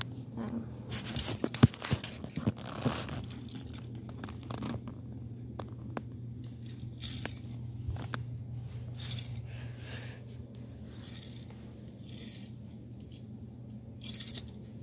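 Handling noise from a toy car played with on carpet: scrapes, rustles and sharp clicks of a hand, a phone and a Hot Wheels die-cast car, with the loudest click about a second and a half in. A low steady hum runs underneath.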